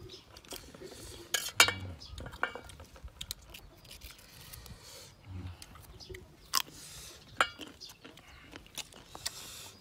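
A knife cutting and scraping crisp green ambarella fruit, with scattered sharp clicks and clinks and crunchy chewing of the fruit.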